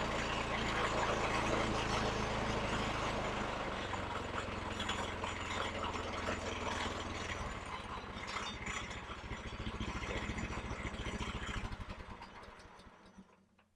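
Portable sawmill's gasoline engine running, then slowing over several seconds, its separate firing strokes heard as it winds down, until it stops near the end.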